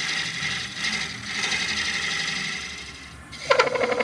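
Wood rubbing on wood on a running lathe: the spinning hollow vase is pressed against its grain-matched bottom plug to burnish the joint and show where the fit touches. A steady rubbing hiss fades, then about three and a half seconds in a louder, fast pulsing rub starts, about ten pulses a second, as the plug is pushed into the opening.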